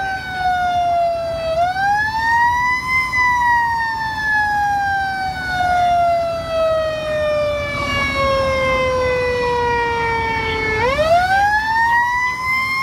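Fire engine's siren heard from inside the cab, over the truck's engine and road noise. A single wailing tone sinks slowly, climbs about a second and a half in, sinks gradually for about eight seconds, then climbs again quickly near the end.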